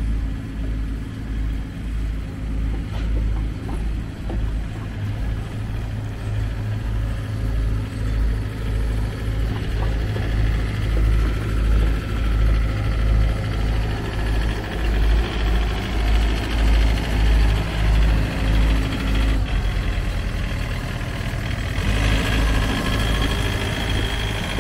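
Takeuchi TB250-2 5-tonne excavator's diesel engine running steadily with a low, rhythmic pulsing. About twenty-two seconds in, a higher whine joins it.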